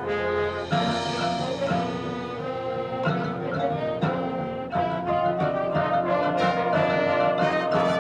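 Marching band playing a brass-led passage, chords changing about once a second, then settling into a long held chord from about two-thirds of the way in.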